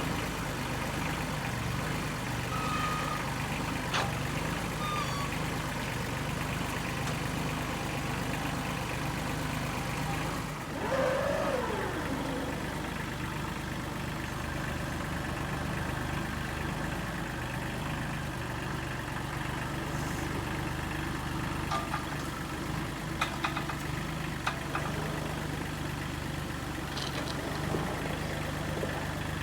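An engine idling steadily, with a brief squeal that falls in pitch about eleven seconds in and a few light clicks and knocks later on.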